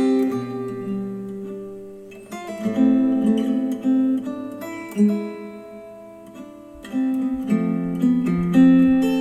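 Acoustic guitar music with strummed and plucked chords played back through KEF Q350 bookshelf speakers driven by a NAD C316BEE V2 amplifier. Each chord rings out and fades, with a quieter stretch a little past the middle.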